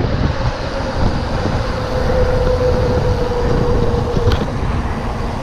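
Wind buffeting the action-camera microphone as a mountain bike rolls fast down asphalt, with a steady hum from its knobby tyres on the road that rises slightly in pitch midway.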